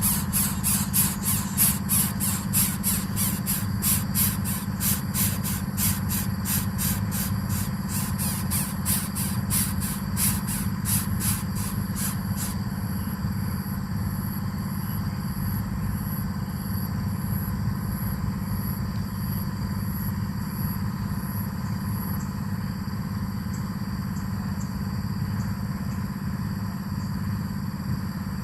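Coucal chicks in the nest giving rapid, evenly repeated high begging squeals, about two to three a second, that stop abruptly about twelve seconds in, followed by a fainter high pulsing. A steady low hum runs underneath.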